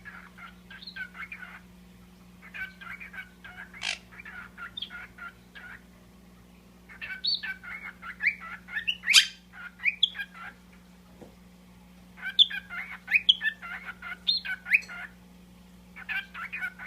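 Pet parrots chattering and chirping in quick runs of calls a second or few long, with short pauses between; the sharpest, loudest calls come about halfway through and again in the last third.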